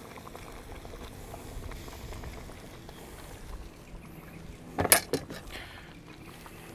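Water bubbling faintly in a kazan cauldron over the fire, with a quick cluster of sharp metal clinks about five seconds in.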